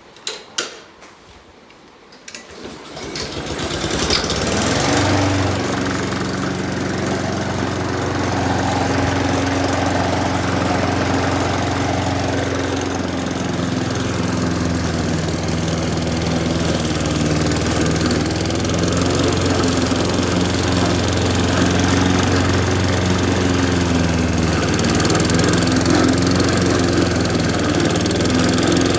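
A few sharp clicks, then a gasoline lawn mower engine starts about two seconds in, comes up to speed and runs steadily.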